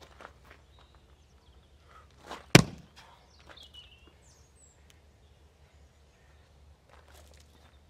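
A splitting maul strikes a log round once with a sharp crack about two and a half seconds in, just after a softer knock. The head stays stuck in the wood rather than splitting the round through.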